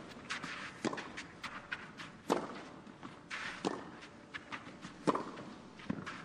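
Tennis rally on a clay court: the ball cracks off the rackets about every second and a half, with the players' quick footsteps on the clay between shots.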